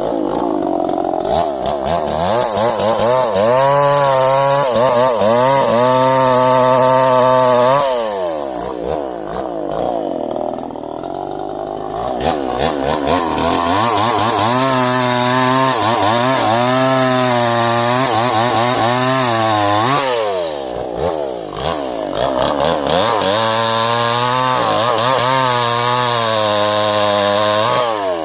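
Two-stroke chainsaw run at full throttle and cutting into wood in three long stretches, its engine pitch wavering under load, dropping back toward idle between cuts.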